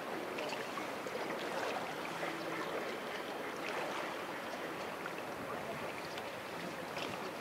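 Sea water lapping and washing against a harbour quay, a steady noise with a few faint scattered ticks.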